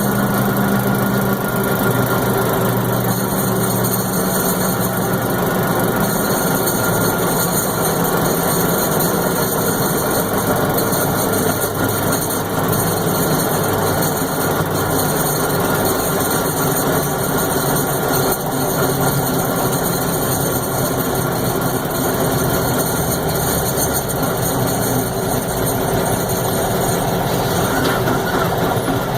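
M925 five-ton military cargo truck's diesel engine running steadily, making an odd noise that the owner cannot identify.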